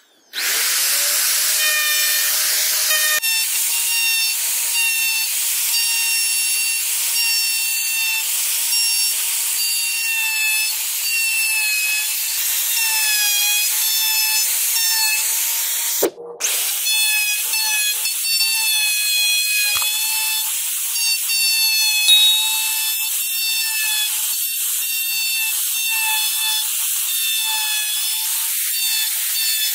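Electric plunge router spinning up with a rising whine, then running with a steady high whine and hiss as its bit cuts into wood. The sound breaks off briefly about halfway, then resumes.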